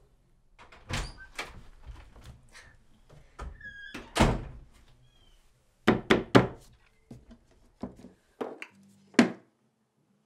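A series of household knocks and thuds as things are handled and a cabinet door is opened and shut. The sounds are separate and irregular, the loudest a little after four seconds and a quick run of three around six seconds, with a short high squeak just before the loudest one.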